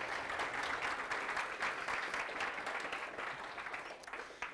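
Audience applauding: dense clapping that thins out near the end.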